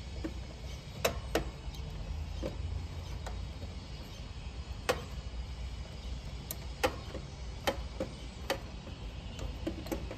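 Irregular sharp metallic clicks and taps as a wrench and hardware are worked against the terminals and sheet-metal box of an AC condenser's electrical compartment, over a steady low rumble.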